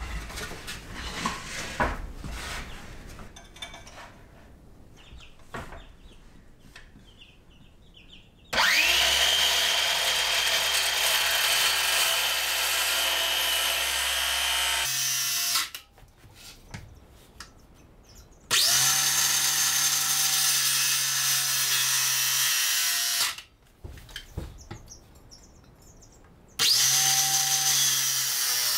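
Porter-Cable 20V cordless circular saw cutting wooden trim boards in three runs. Each run opens with a rising whine as the blade spins up, then holds steady for several seconds and stops abruptly: about 9 s in, about 18 s in, and a last run starting near the end. Before the first run, the boards are knocked and shifted about on the floor.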